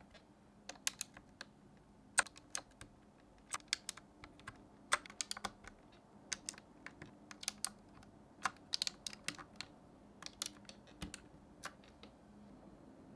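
Irregular sharp plastic clicks from an AJAZZ K870T mechanical keyboard as its keycaps are pulled off and pressed back onto the switches, a few clicks a second. The clicking stops near the end.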